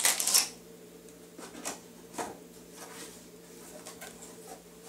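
Cardboard packaging being opened and handled: a loud rustle and scrape at the start, then quieter scattered rustles and light taps.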